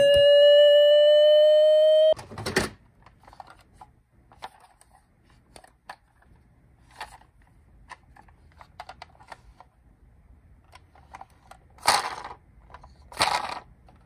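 A toy ambulance's electronic siren holds one loud tone that rises slightly, then cuts off about two seconds in. Soft clicks and rustles of a plastic toy being handled in a cardboard box follow, with two louder rustles near the end.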